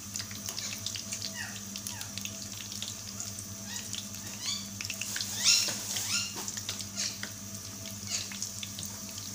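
Rolls deep-frying in hot oil: a steady sizzle with scattered crackles and pops. A few short rising chirps come through, loudest about five and a half seconds in.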